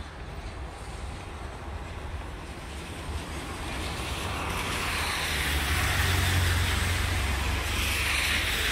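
Road traffic passing on a street: a steady low rumble, with a car's tyre noise swelling louder from about halfway through.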